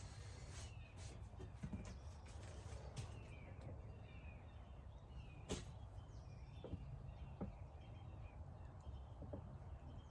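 Faint outdoor background of birds calling over a low steady hum, with a few light clicks and taps, the sharpest about five and a half seconds in.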